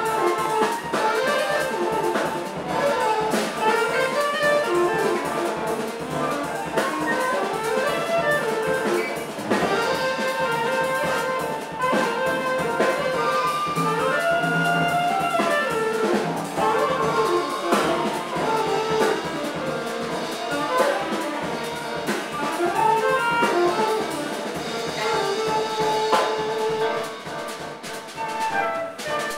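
Live jazz quartet: alto saxophone and flute playing interweaving melodic lines over piano and a drum kit.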